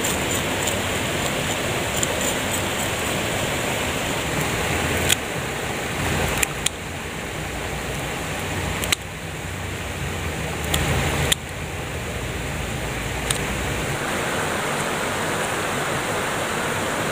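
Steady rush of flowing river water, with a few abrupt jumps in level where the footage is cut.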